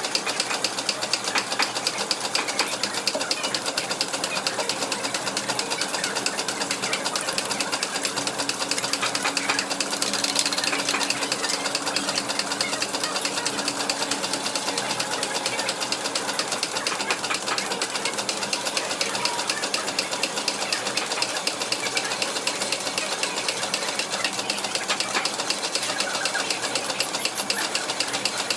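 Workshop steam engine thumping at a fast, steady beat, mixed with the clatter of old line-shaft-driven machine tools running right next to it.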